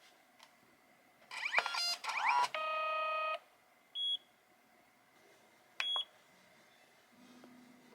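Electronic chimes and beeps from a Kodak Mini Shot 2 Era instant camera-printer: a quick run of rising chirps a little over a second in, then a held tone just under a second long, then two short high beeps about two seconds apart.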